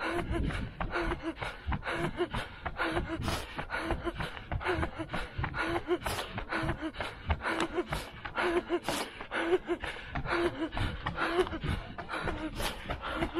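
A runner panting hard at race pace, a short voiced note on many breaths, over quick regular footfalls on pavement, about three steps a second.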